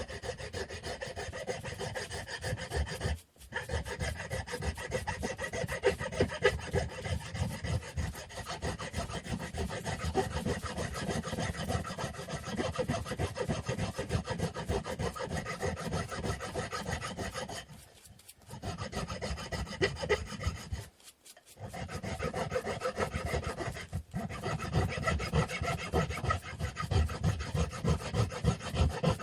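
Wooden stick being sanded by hand: quick, continuous rubbing strokes of abrasive on wood, stopping briefly three times.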